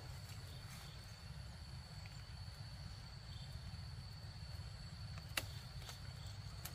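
Faint ambience with a steady low rumble and a thin, steady high tone, broken by a single sharp click about five seconds in.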